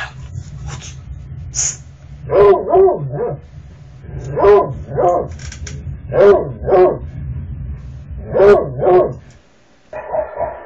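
A dog barking, mostly two barks at a time, about every two seconds, over a low steady rumble that stops near the end.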